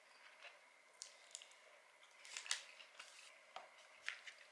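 Faint, scattered crisp clicks and crackles of eating: chewing a fried chicken sandwich and handling its paper wrapper, the sharpest about two and a half seconds in.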